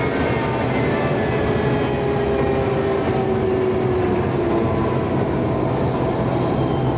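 Belkommunmash BKM-32100D trolleybus running, heard from inside the cabin: the electric traction drive whines in several tones that glide slowly downward over a steady low rumble of the road.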